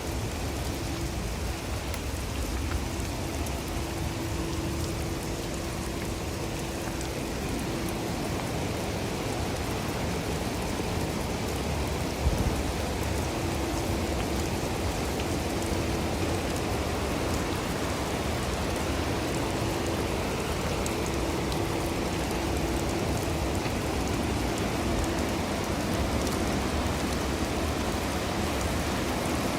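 Steady rain falling, with a low steady hum that fades in and out and a single knock about twelve seconds in.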